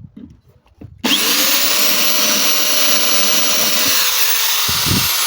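Electric drill starting about a second in, spinning up briefly and then running steadily as it widens a hole in a small fabricated part.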